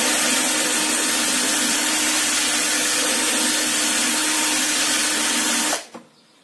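Electric drill running at steady speed, spinning a round file against a chainsaw chain tooth to sharpen it, with a steady hum under a constant hiss. It stops suddenly near the end.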